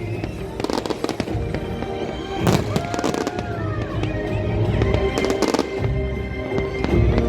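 Fireworks going off: a string of sharp bangs and crackles, the loudest about two and a half seconds in and a pair around five seconds in, over music.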